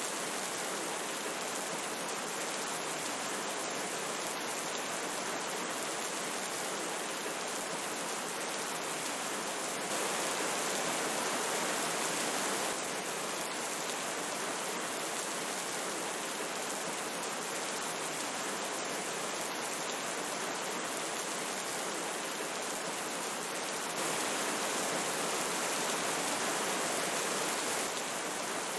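Steady rushing of a river with rain, an even hiss of water. It steps up a little louder for a few seconds twice.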